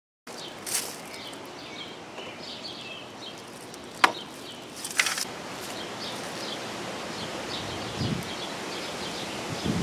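Outdoor background with small birds chirping over and over, broken by one sharp click about four seconds in and a short rustle a second later.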